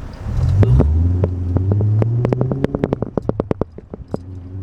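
BMW E39's engine pulling hard in the cabin, its pitch climbing for about two and a half seconds, then dropping as the throttle eases off. A quick run of sharp rattling clicks sounds over it.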